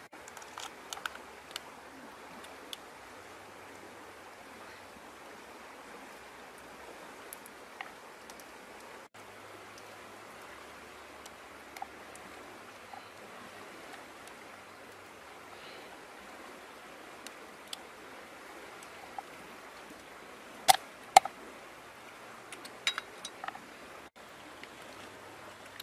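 Raw crabs being handled on a wooden chopping board: scattered light clicks and taps of shell against wood over a steady background hiss. About three quarters of the way through come two sharp knocks, then a quick run of clicks.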